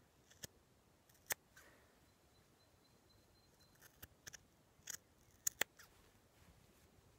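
Scissors cutting a steek through a hand-knit wool sweater: a series of short, sharp snips. The loudest snip comes about a second in, and a quick cluster of snips follows about four to six seconds in.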